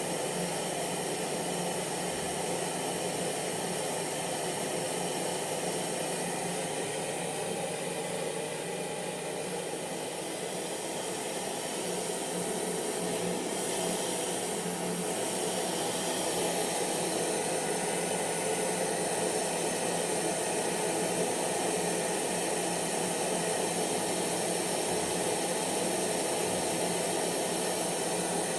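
Hair dryer running steadily: a continuous rush of blown air with a steady motor whine in it, dipping slightly in loudness about ten seconds in.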